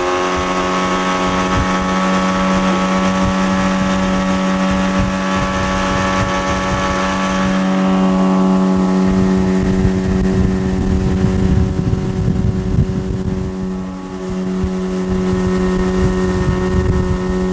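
A 40-horsepower outboard motor running steadily at speed, pushing a boat across open water, over an irregular low rumble. A high hiss fades out about halfway through.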